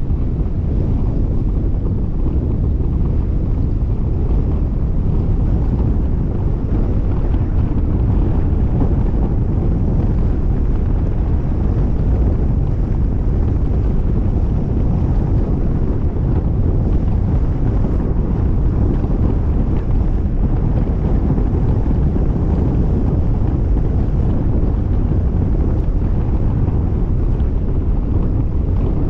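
Steady, loud wind buffeting a GoPro Fusion camera's microphone: a low rumbling noise that holds without a break and has no distinct engine tone in it.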